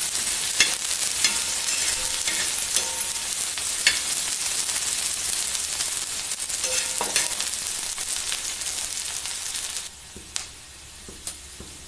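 Chopped onion, ginger and green chilli sizzling in oil on a flat tawa griddle, with a spatula scraping and tapping the pan as they are stirred. The sizzle drops away suddenly near the end, leaving a fainter hiss and a few light taps.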